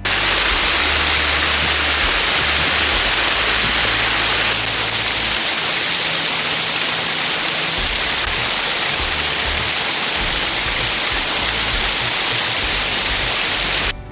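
A small waterfall pouring, heard as a loud, steady rush of falling water close to the microphone. About four and a half seconds in, its highest hiss drops away abruptly, and the rush cuts off near the end.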